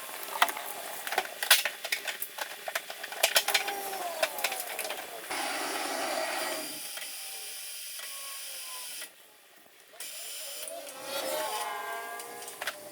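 Hand-tool work on a pickup: a series of sharp metallic clicks and knocks, like a ratchet and tools handled on metal, with the sound changing abruptly several times.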